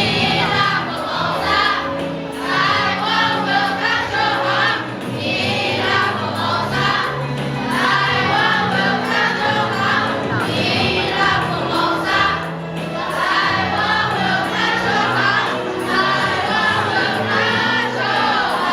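A children's choir singing in English to a recorded backing track.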